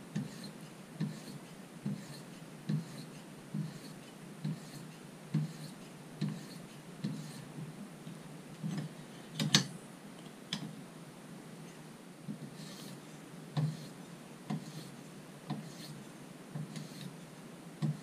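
Fine sharpening stone on a TSprof guided-rod knife sharpener drawn in regular strokes along a pocket knife's edge, about one stroke a second: light finishing passes on an edge that is already smooth. About halfway there is a sharp click and a smaller knock as the blade clamp is turned over for the other side, then the strokes resume.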